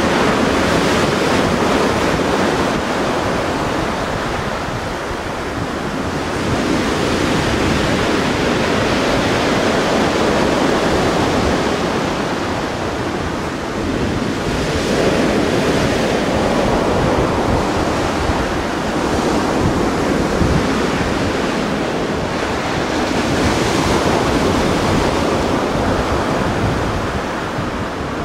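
Sea surf washing in and out in slow surges every several seconds, with wind rumbling on the microphone.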